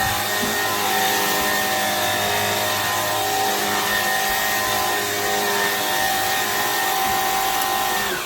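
Vacuum cleaner running steadily with a whining motor over the rush of air, shutting off suddenly at the very end.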